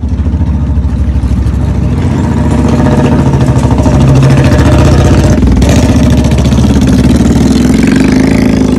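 Royal Enfield Bullet single-cylinder motorcycle engine running loud and close, a rapid steady stream of exhaust beats that rises a little in loudness over the first few seconds.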